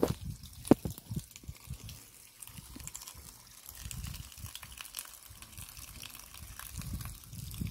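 Water from an outdoor tap pouring and splashing onto mangoes in a plastic bag, with a few sharp knocks from handling near the start.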